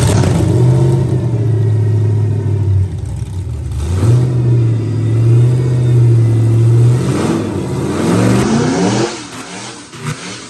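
LS V8 with a freshly installed big cam, run hard in two long pulls with a short dip between them, as the truck spins its tires. The revs fall away about nine seconds in.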